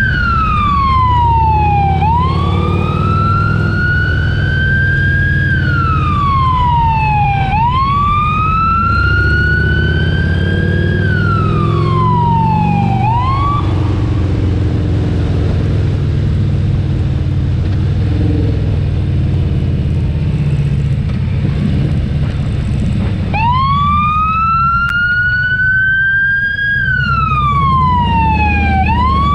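Wailing emergency-vehicle siren, its pitch climbing slowly and dropping back about every five and a half seconds; it stops about halfway through and starts up again some ten seconds later. A motorcycle engine runs underneath.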